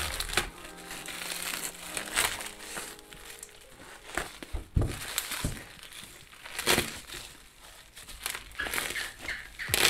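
Scissors cutting through a woven plastic sack and its plastic wrap, the plastic crinkling and rustling as it is pulled apart, with irregular sharp snips and crackles.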